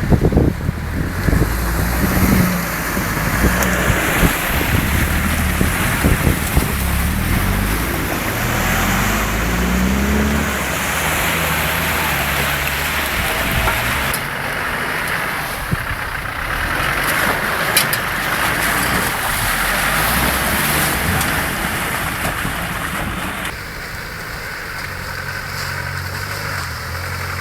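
A 4x4's engine running while driving off-road, revving up and down under load, with a haze of noise over it. The sound of the engine changes abruptly twice in the second half.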